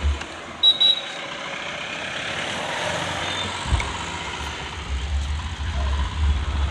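Road traffic: a motor vehicle passing, its noise swelling toward the middle, with a short high beep about a second in. A low wind rumble on the microphone sets in at about four seconds, while cycling.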